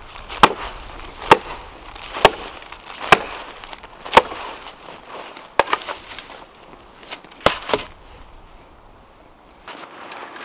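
Hatchet chopping into a fallen conifer trunk. Five sharp blows land about a second apart, then a few looser strikes, two of them in quick pairs. The chopping stops about eight seconds in.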